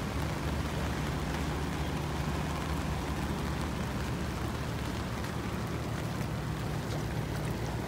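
Heavy rain falling on pavement, a steady hiss, with a steady low rumble underneath.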